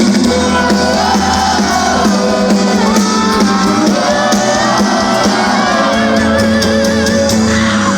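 Live sertanejo band playing between sung lines, with the audience shouting and whooping over the music.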